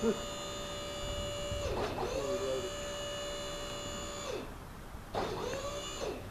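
Electric trailer winch whining steadily as it pulls a car body up a tilted trailer deck. It stops and restarts twice, about two seconds in and again just after four seconds, and its pitch sweeps down and back up each time it starts again.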